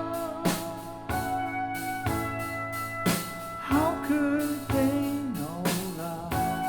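Recorded music played back over Harbeth SHL5+ loudspeakers driven by a March Audio P252 class D amplifier: a slow song with drum hits and held instrument tones.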